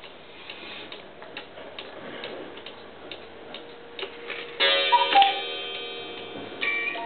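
Carved Black Forest cuckoo clock ticking while its hands are turned; about four and a half seconds in, the cuckoo mechanism goes off with a burst of ringing tones and a two-note falling call, and near the end separate music-box notes begin.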